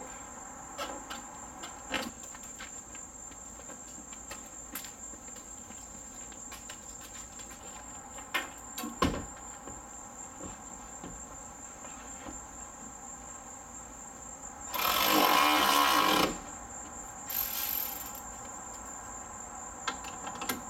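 Steady high-pitched chirring of crickets at night, with scattered small clicks and knocks. About fifteen seconds in comes a loud rustling noise lasting over a second, then a shorter, fainter one.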